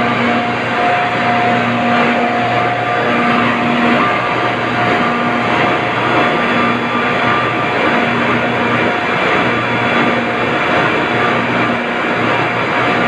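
Mycom industrial screw refrigeration compressor running steadily: a loud, constant machine drone with several steady hum tones.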